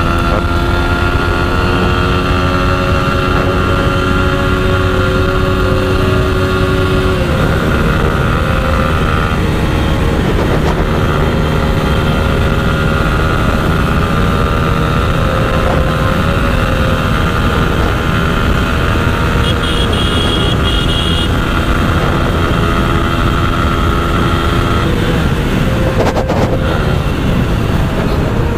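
TVS Apache RTR 4V's single-cylinder engine running hard at over 110 km/h during a top-speed run, its note shifting a few times as the throttle changes, under heavy wind rush on the microphone.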